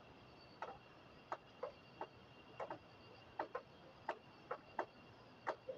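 Faint, irregular small clicks and ticks, about two a second, from hands wrapping floral tape around the end of a fabric-covered plastic hair band. A faint steady high tone runs underneath.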